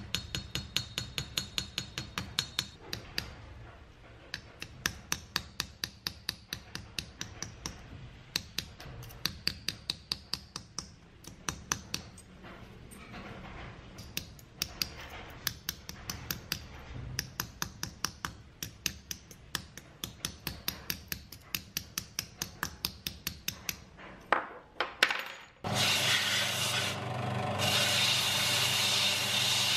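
Small hammer tapping a steel punch on a metal piece laid on a steel bench anvil: quick, even metallic taps, about four or five a second. Near the end, an electric bench-top grinding machine starts and runs steadily, with a hiss.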